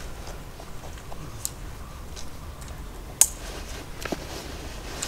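Quiet background with a low steady rumble and a few faint, sharp clicks, the sharpest about three seconds in.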